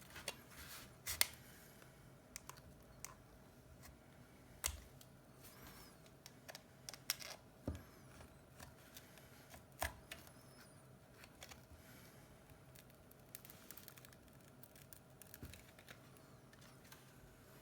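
Faint, irregular clicks and taps of small hand tools on the parts of an iPhone 7 being taken apart for a display replacement, about a dozen scattered ticks over a faint steady hum.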